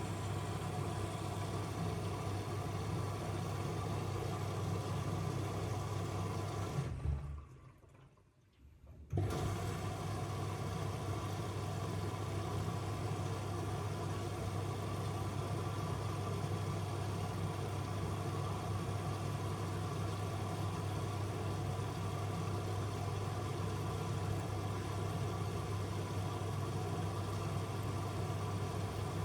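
Miele W1 front-loading washing machine taking in water, a steady rush of water with a low hum. It stops for about two seconds some seven seconds in, then starts again.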